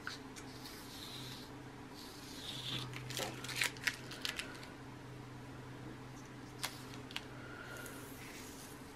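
Tape being peeled off watercolour paper by hand: soft rustling and crackling peels clustered about three to four and a half seconds in, with two light ticks later. A faint low hum runs underneath.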